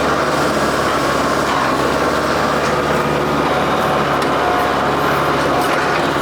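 New Holland WorkMaster 55 tractor's diesel engine running steadily under load while pushing against a tree, with a few faint cracks near the end.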